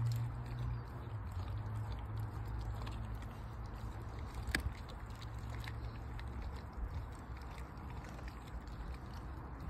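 German shepherd chewing and crunching a raw whole chicken, with scattered sharp cracks and one louder crack about halfway through. A low steady hum runs underneath and fades out about two-thirds of the way in.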